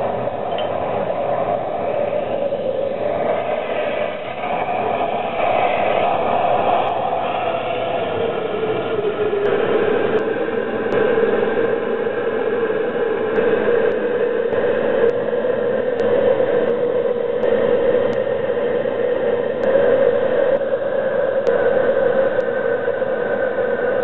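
Propane burner firing into a small paint-can foundry furnace: a steady rushing roar with a humming tone that wavers and settles slightly lower about eight seconds in, as the furnace heats up toward melting aluminum.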